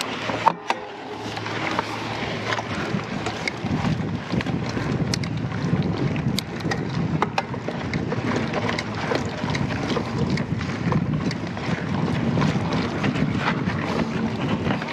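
Mountain bike riding a dirt trail, heard from an onboard action camera: wind buffeting the microphone over a steady rumble of tyres on the ground, with frequent sharp clicks and rattles from the bike over the bumps.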